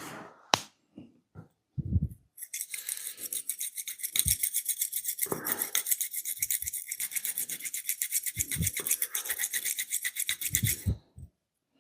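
Rapid, rhythmic scratching strokes of hands working during an oil massage, several strokes a second. They start a couple of seconds in and stop shortly before the end, with a few soft low thumps among them.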